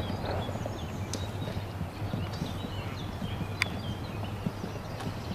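Horse's hooves cantering on an arena's sand footing, a continuous run of low thuds, with one sharp click about three and a half seconds in.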